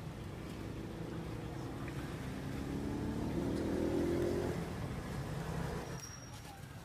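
A motor vehicle passing by: a low engine drone whose pitch rises as it grows louder, peaking about four seconds in, then fading away.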